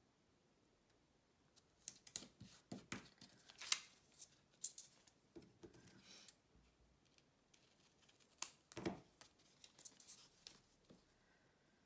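Quiet handling sounds of ribbon and double-sided tape: scattered snips, clicks and rustles in short clusters, as tape is laid along a satin ribbon and cut to length with scissors.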